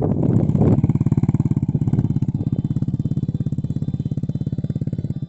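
Single-cylinder four-stroke motorcycle engine of a Honda Nice 125 build running through an Apido Powerpipe open exhaust: louder and rougher for about the first second, then a steady, even putter that slowly fades. The pipe's fibre packing has long gone unreplaced, giving it a less crisp tone.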